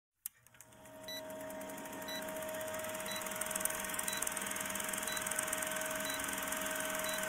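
Vintage film-countdown intro effect: a steady projector-like rattle with film crackle and hiss over a faint hum, with a short high blip about once a second.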